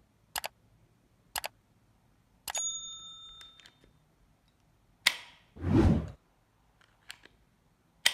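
Hammer of an antique German single-shot pistol being cocked and let fall: crisp metal clicks, twice in quick pairs, then a sharp snap with a brief metallic ring a couple of seconds in, and further single clicks later. A whoosh of noise sounds around six seconds in.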